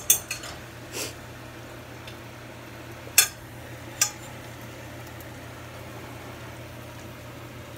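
A fork clinking against a stainless steel pan four times, over the steady sizzle of a slice of pork roll frying in fat.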